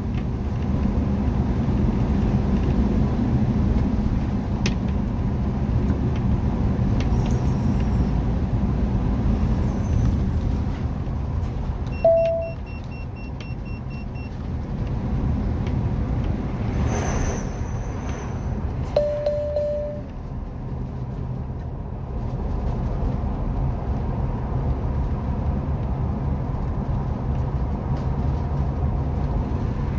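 Bus-based camper van driving on a country road, heard from inside the cab: steady engine hum and tyre rumble. Two short electronic beeps cut through, one a little before halfway and one about two-thirds of the way through.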